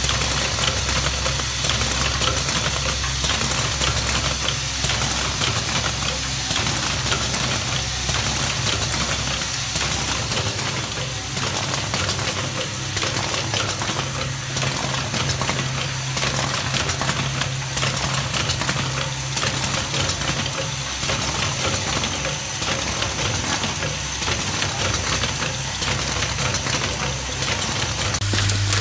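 Automated flint-wheel lighter head assembly machine running: a dense, continuous rapid clatter of its indexing table, pneumatic stations and parts feeders over a steady low hum.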